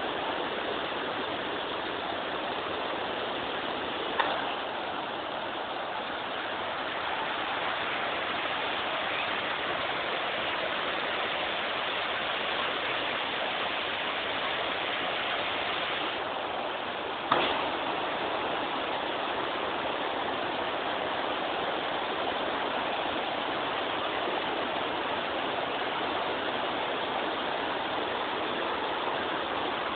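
Waterfall water rushing steadily, with two brief clicks, one about four seconds in and one a little past the middle.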